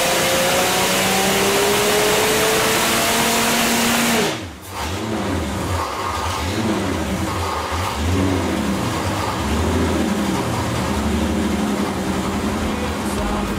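Oliver pulling-tractor engine with custom fuel injection and header running at high revs, its pitch slowly climbing. About four seconds in the throttle snaps shut and the engine drops to an uneven idle.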